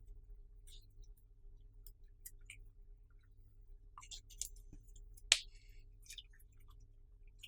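Clear slime being worked by hand, giving scattered small sticky clicks and pops. A little past five seconds comes one much sharper click with a brief ring after it.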